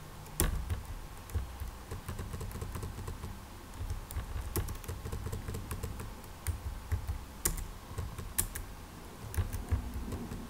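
Computer keyboard typing: irregular single keystrokes with short pauses between them, each a sharp click with a dull thud.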